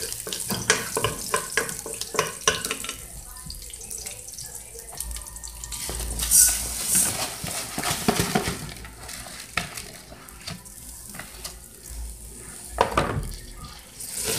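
Garlic sizzling in oil in an aluminium pot while a wooden spoon stirs and knocks against the pot. Midway, raw rice is poured into the hot pot with a brief loud hiss of grains, then stirred in.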